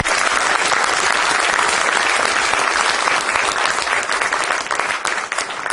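Audience applauding: dense, steady clapping from a roomful of people that begins to die down near the end.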